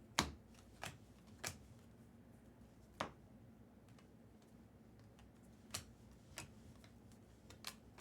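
Trading cards being handled and flipped through: about seven short, sharp clicks at irregular intervals, the first the loudest.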